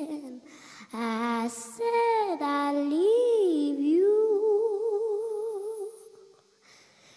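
A young girl singing solo into a microphone: a slow melodic phrase with swooping runs up and down, ending in a long note with vibrato that fades away about six seconds in.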